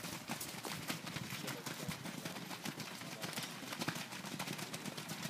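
Hoofbeats of several ridden horses going past on dirt arena footing, an irregular run of thuds.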